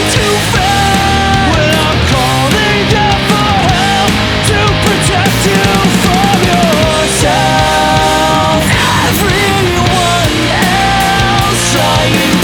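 Loud melodic punk rock with heavy-metal-style riffing, played on distorted electric guitars, bass and drums, in an instrumental passage with held notes.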